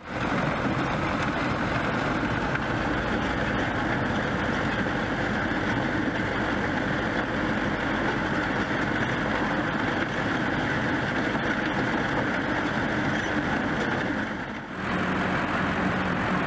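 A milling-rotor snowblower running steadily, its engine and rotor giving a continuous mechanical drone. There is a short dip just before the end, where the sound is cut and resumes.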